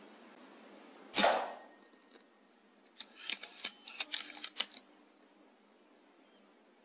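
A single shot from a .177 sub-12 Air Arms S510 Ultimate Sporter PCP air rifle about a second in: a sharp crack with a short tail. About two seconds later, a quick run of clicks and rattles lasting under two seconds.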